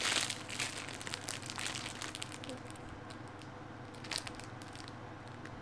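Clear plastic packaging bag crinkling as hands squeeze and handle the squishy toy inside it, densest in the first two seconds, with another short rustle about four seconds in.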